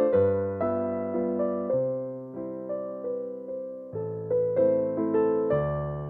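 Background music: slow, gentle solo piano, with notes and chords struck and left to ring and fade, thinning out a little before the middle before picking up again.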